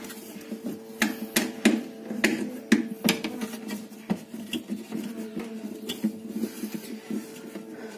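Sharp clicks and knocks of plastic and metal refrigerator parts being handled and fitted during reassembly, most of them about one to three seconds in, over a steady hum.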